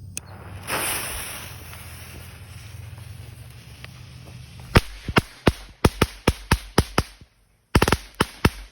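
A 16-strip of Thunder Bomb firecrackers going off: a brief hiss about a second in, then from about five seconds a rapid, uneven string of sharp bangs, a short pause, and a last quick cluster of bangs near the end.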